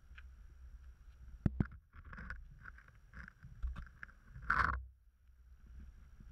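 A ground squirrel nosing and pawing at a camera on the ground: a couple of sharp taps about a second and a half in, then scratchy rustling against the camera, loudest around four and a half seconds in as its fur rubs over the lens.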